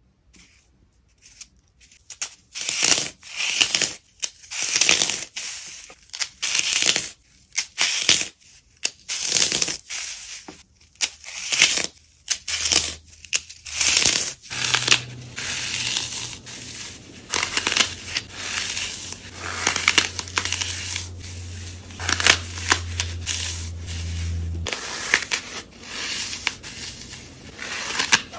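Dry floral foam crushed and crumbled in the hands: a run of crisp, gritty crunches and crackles, one squeeze after another with short pauses between. A low hum runs under it for about twelve seconds in the middle.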